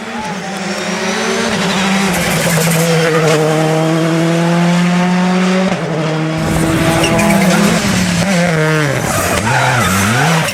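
Rally car engine at high revs, holding a steady pitch for several seconds. From about six seconds in, the revs swing quickly down and up as it brakes, downshifts and blips the throttle, with tyre squeal as it slides through a corner.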